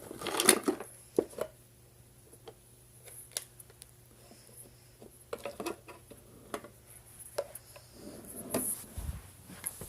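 Plastic Snap Circuits parts being handled and sorted: scattered small clicks and clacks of the hard plastic pieces knocking together, more of them about a second in, around the middle and near the end.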